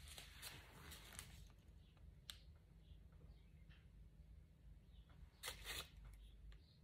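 Near silence: room tone with a faint low hum. There is a faint click about two seconds in and a brief double rustle about five and a half seconds in.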